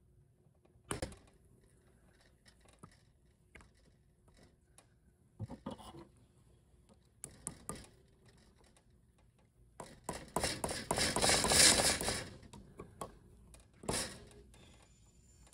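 Hand tools working on a VW 01M/01P automatic transmission valve body while the pressure regulator valve is pushed in against its spring. Scattered metal clicks and taps, then about two seconds of rapid clicking and scraping around ten seconds in, and one more knock near the end.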